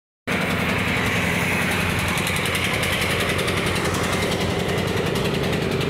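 Mahindra 275 DI tractor's three-cylinder diesel engine idling steadily.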